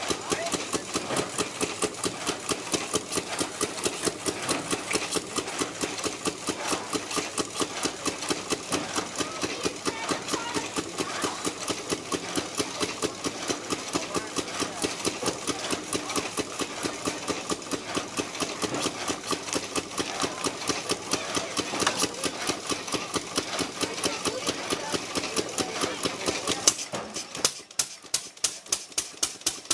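Antique single-cylinder engine-driven drag saw cutting a log: the engine fires in a rapid, steady beat over the rasp of the reciprocating blade in the wood. About 27 seconds in, the deeper sound of the cut drops away, leaving only the engine's sharp, regular pops.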